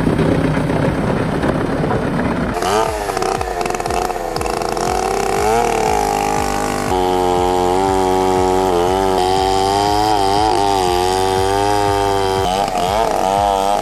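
Large two-stroke chainsaw cutting through big rounds of wood, its engine pitch rising and falling as the chain works under load.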